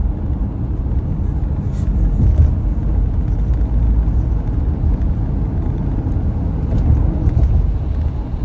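Steady low rumble of a car driving on a highway, engine and tyre noise heard from inside the cabin.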